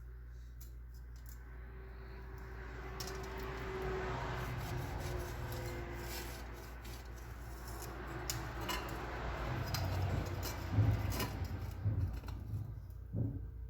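Metal scraping and rubbing with light clanks as a submersible motor's wound stator is worked into its steel housing, building up over the first few seconds, with several sharper knocks near the end. A steady low hum lies underneath.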